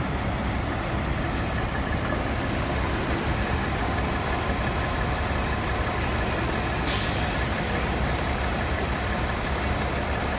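Fire truck's diesel engine idling with a steady low rumble, and one short, sharp hiss of air brakes about seven seconds in.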